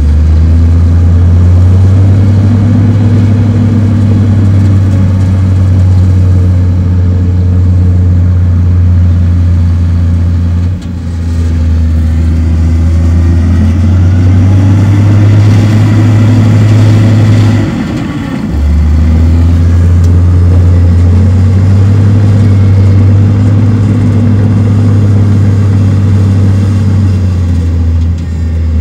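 Heavy diesel engine of earthmoving machinery running loud and steady under load, its note dropping briefly twice.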